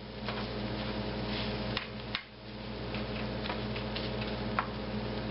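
Egg and leftover Mexican food sizzling in a small nonstick skillet while a plastic spatula stirs it, with irregular sharp clicks and ticks scattered throughout. A low steady hum runs underneath.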